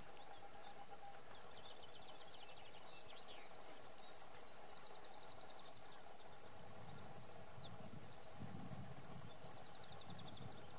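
Birds calling across open mudflats: repeated fast high-pitched trills, each about a second long, with short chirps in between, over a steady faint background hum. A low rumble comes in over the last few seconds.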